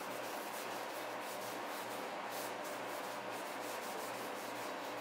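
A hand-held pad rubbed back and forth over a wooden newel post: a quiet, steady scrubbing hiss of repeated hand strokes on wood.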